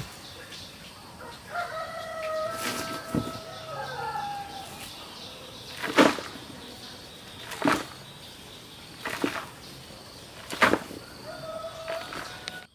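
Sharp knocks and scrapes, about every second and a half, as dry soil is chopped loose with a machete and scooped by hand into a plastic basin. A rooster crows about two seconds in and calls again briefly near the end.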